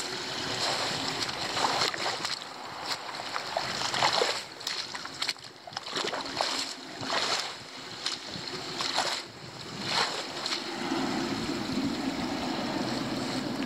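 Water splashing and sloshing at a flooded roadside drain as its leaf blockage is cleared, in irregular splashes with a steadier rush near the end.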